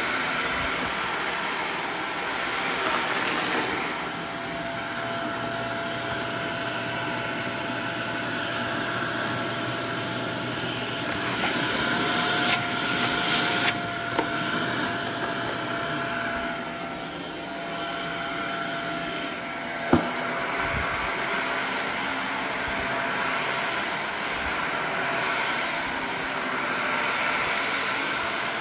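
Upright vacuum cleaner running steadily on carpet, with a louder rush of air through its hose wand about twelve to fourteen seconds in and a single sharp knock about twenty seconds in.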